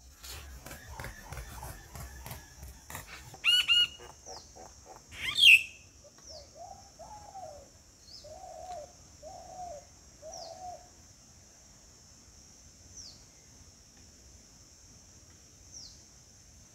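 Wings flapping as a bird lands at a water basin. Then come two loud bird calls, the second the loudest, followed by five short low calls. A steady high insect drone and faint chirps run underneath.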